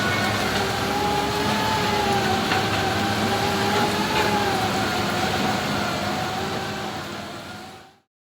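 Sany SR150C hydraulic rotary drilling rig running, its engine and hydraulic drive giving a steady whine that wavers slightly in pitch over a broad machine noise. The sound fades out near the end.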